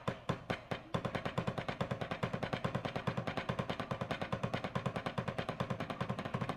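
Wooden drumsticks striking a rubber practice pad in rapid, even single strokes. About a second in they pick up into a fast, continuous stream of hits, as in a speed-building hand exercise.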